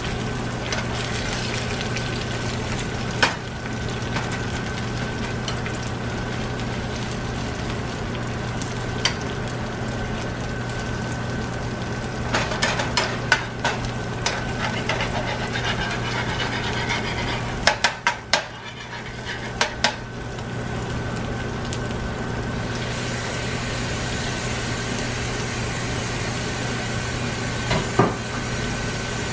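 Eggs sizzling steadily in hot oil in a nonstick frying pan, with a slotted spatula scraping and knocking against the pan a few times: once about 3 s in, in clusters around 12–14 s and 18–20 s, and once near the end. A steady low hum runs underneath.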